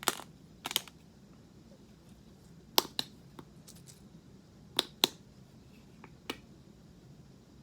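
A handheld peppercorn and sea salt spice grinder being twisted with its cap on. It gives a run of sharp clicks, about eight, irregularly spaced.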